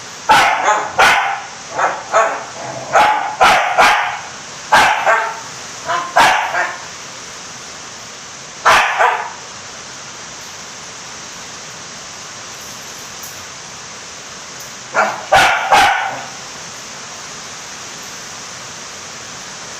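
A dog barking in short, sharp, irregular volleys: about a dozen barks in quick succession, one more, then several seconds of quiet before three more barks close together, over a steady background hiss.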